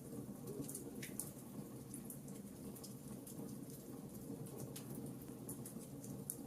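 Fireplace crackling: a steady low rumble of the fire with frequent small, sharp pops and snaps at irregular intervals.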